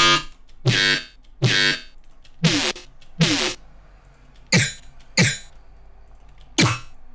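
Chopped, resampled synth bass one-shots played back in a sequenced pattern: about eight short hits with uneven gaps, each one sweeping down in pitch.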